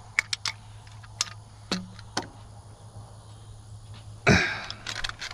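A few sharp metallic clicks of a wrench on air-line fittings as they are tightened, over a steady low hum; about four seconds in, a man clears his throat once.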